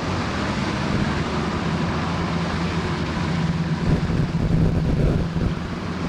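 Tour boat's engine running steadily under way, a low hum that swells slightly a few seconds in, with wind rushing over the microphone.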